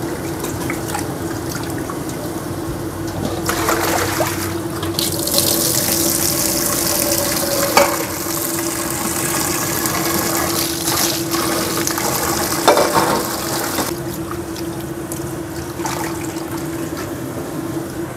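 Kitchen tap running into a sink for several seconds in the middle, with a few knocks, over a steady low hum.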